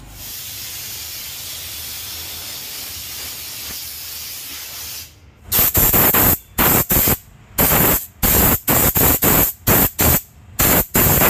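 A steady hiss for about five seconds, then a handheld steam-cleaning gun firing about a dozen short, loud blasts of steam in quick succession as it is triggered on and off against car floor carpet.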